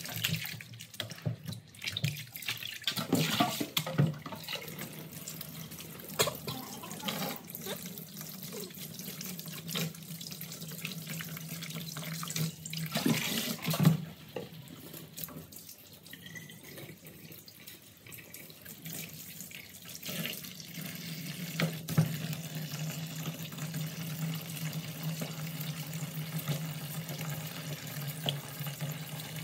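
Tap water pouring steadily into a plastic basin of water in a sink, with hands splashing as a peeled sweet potato is rubbed and rinsed under the stream. A few louder splashes and knocks stand out, about 4, 14 and 22 seconds in.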